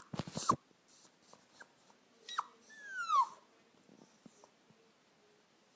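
A dog whining: short breathy huffs at the start, then a brief high whimper and a longer high-pitched whine that falls in pitch, followed by a pause.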